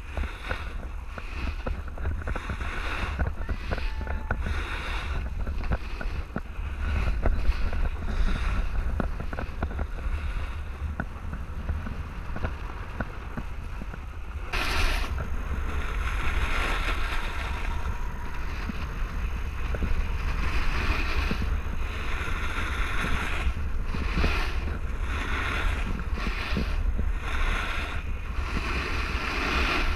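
Wind rumbling on the microphone of a camera moving fast downhill behind a snowboarder, with the hiss and scrape of snowboard edges sliding over packed snow. The hiss gets abruptly louder and brighter about halfway through.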